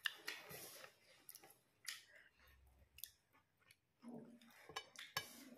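Faint close-up eating sounds: chewing with lip smacks and scattered sharp mouth clicks, as rice and meat curry are eaten by hand.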